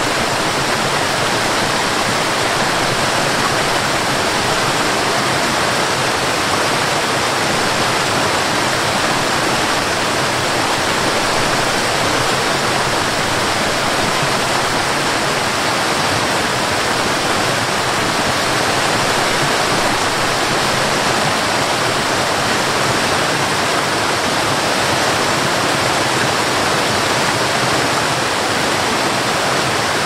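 Waterfall cascading over rock steps: a steady rushing of water.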